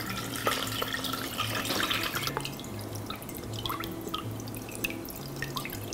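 Turkey pan drippings pouring from a metal roasting pan through a cheesecloth-lined strainer into a glass measuring cup, trickling and dripping, heavier in the first couple of seconds, with a few light clicks of a spoon stirring in the strainer.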